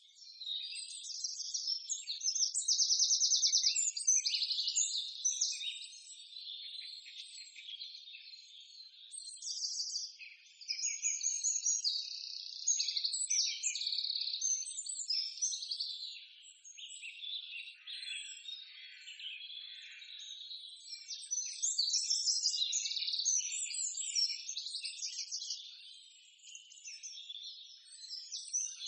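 A chorus of small birds chirping and trilling, high-pitched, with fast rattling trills among varied short calls that keep overlapping and swelling and fading.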